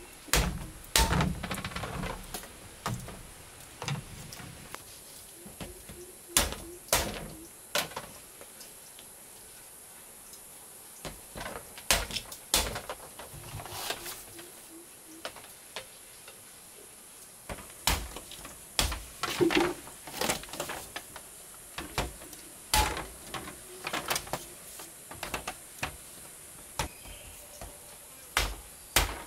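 Irregular sharp knocks and clicks, singly and in quick clusters, over a faint steady high hiss.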